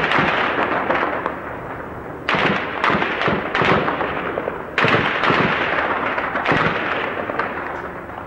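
Explosions and heavy weapons fire in a street tank battle: two sudden loud blasts, about two and five seconds in, each followed by a couple of seconds of crackling, echoing rumble, with smaller cracks in between.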